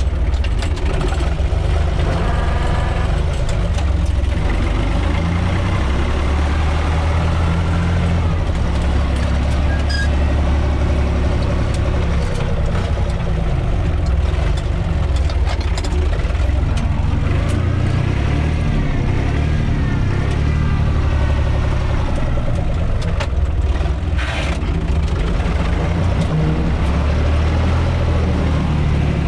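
UTB 445 tractor's diesel engine running steadily, heard from the driver's seat inside the cab.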